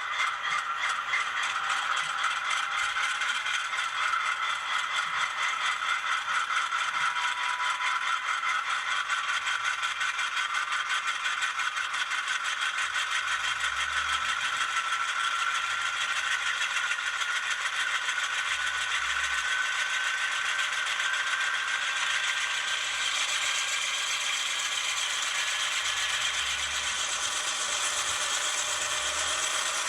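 HO scale Scaletrains GE Dash 9 model locomotives running along the track: a steady, fine rattling clatter of small wheels and drive mechanism, with a faint whine slowly rising in pitch.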